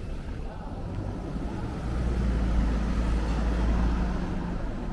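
A car driving past close by, its low engine sound swelling about two seconds in and easing near the end, over general street noise.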